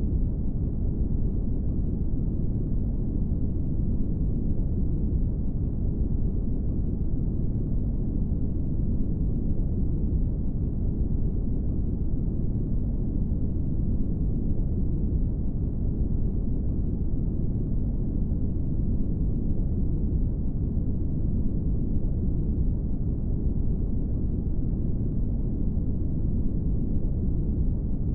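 Brown noise: a steady, deep rumbling hiss, strongest in the bass and rolling off toward the treble, unchanging throughout.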